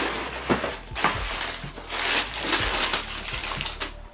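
Paper and cardboard crinkling and rustling in repeated swells, with a few light knocks, as a sneaker box is opened and the shoes are unwrapped.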